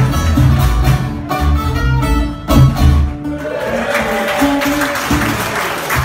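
A ceilidh band's tune ends with a few separated full-band chords on acoustic guitars, mandolin and bass. Audience applause follows from about three and a half seconds in.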